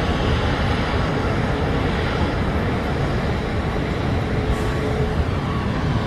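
Steady airport apron noise: a dense, even rush of jet and ground-equipment noise with a faint steady whine running under it.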